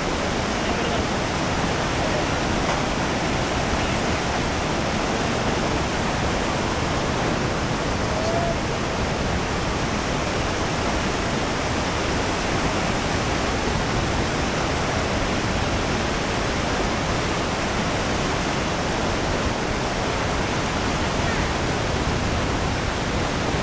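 Steady rushing of the flood-swollen Iguazu River pouring over its falls and churning through rapids, a constant even noise that doesn't let up.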